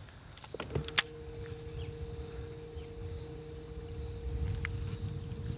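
Steady high-pitched insect drone, with a sharp click about a second in and a steady low hum that starts just before it.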